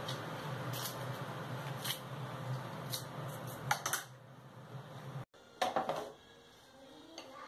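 Kitchen scissors snipping through cavolo nero leaves and stems: about five sharp snips, roughly a second apart, over a steady low hum. After a break near the middle, a brief rustling clatter as the cut leaves are tipped into a pan.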